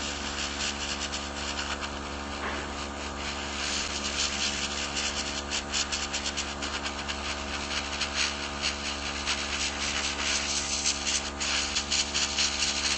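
Nail airbrush spraying paint: a hiss of air that comes in quick, uneven spurts and grows stronger from about three seconds in, over the steady hum of its compressor.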